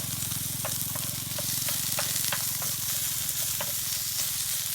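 Pork and onion sizzling in a hot pan while a spatula stirs them, scraping and tapping the pan about three times a second. A steady low hum runs underneath.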